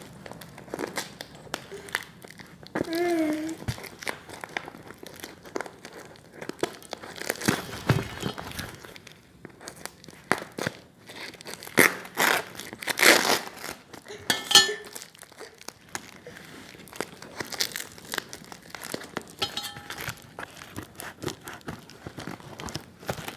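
Scissors cutting through a parcel's plastic wrapping and packing tape, the plastic crinkling and tearing in irregular bursts.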